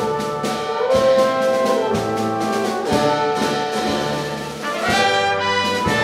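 Small brass and woodwind ensemble with percussion playing a contemporary classical piece for solo horn and ensemble: held brass chords over repeated low notes, with regular percussive strokes about once a second. About five seconds in, a rising swell leads into brighter, higher brass.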